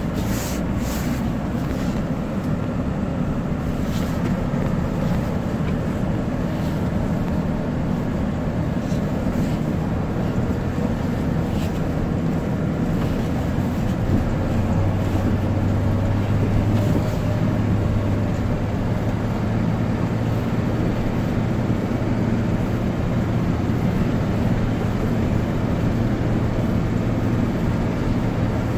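Iveco Eurocargo truck driving on a snow-covered road, heard from inside the cab: a steady engine drone with road noise, the low hum growing stronger about halfway through.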